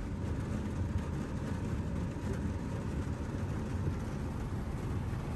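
Steady rain on an electric car's roof and windscreen, heard from inside the cabin as an even, low rumble that holds without change.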